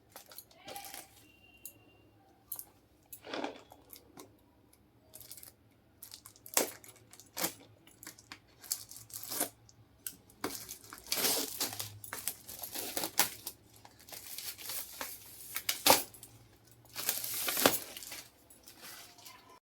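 Gift-box packaging being unwrapped and handled: paper or plastic tearing and crinkling in irregular bursts, with sharp clicks and knocks as items and box parts are moved, the loudest clicks near the end.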